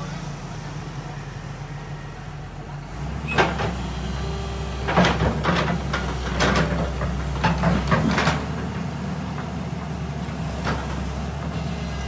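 JCB tracked excavator's diesel engine running, its hum growing louder about three seconds in as it takes up work, with several sharp scraping clanks as the bucket digs into the dirt bank.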